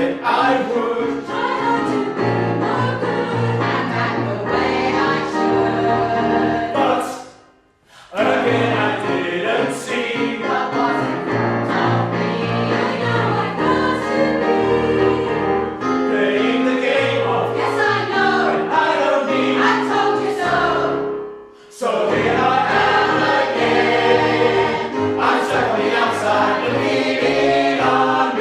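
A mixed choir singing a song in harmony, in phrases that break off briefly twice, about a third of the way in and again about three quarters in.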